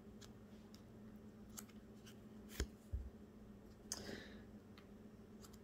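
Tarot cards being handled and laid down on a felt-covered table: a few soft clicks and taps, a light thud about three seconds in and a short sliding rustle of a card about four seconds in, over a faint steady hum.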